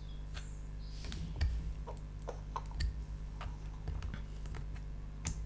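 Scattered, irregular small clicks and ticks from prying at a laptop battery held down by softened adhesive, over a steady low hum.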